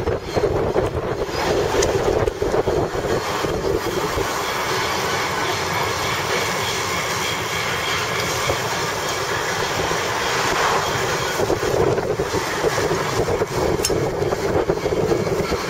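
Car driving slowly alongside cyclists with the window open: steady engine and road noise mixed with wind buffeting the microphone.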